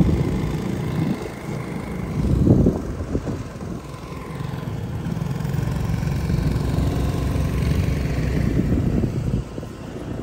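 Motorcycle engine running while riding, a steady low rumble that swells louder about two and a half seconds in and drops off just before the end.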